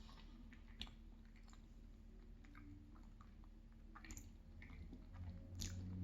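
A person chewing soft pastry with the mouth close to the microphone: faint wet, squishy mouth sounds with a few sharp clicks. A low closed-mouth hum sets in near the end.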